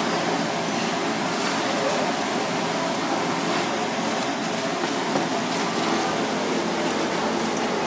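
Steady rushing background noise of a working kitchen, with a few faint knocks of a knife on a plastic cutting board.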